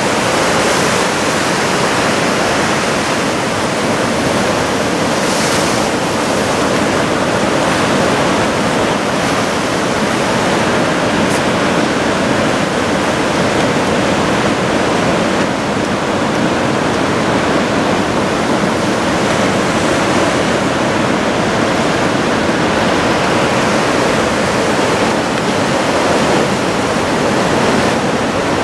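Continuous roar of heavy surf from a large typhoon swell breaking along the shore, a steady wash of noise that hardly rises or falls.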